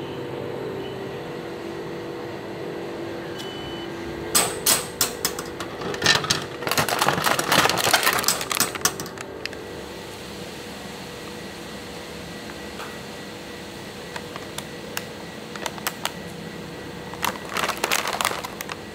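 Bursts of sharp clicking and clattering over a steady machine hum. A dense run of clicks comes about four to nine seconds in, and a shorter one near the end.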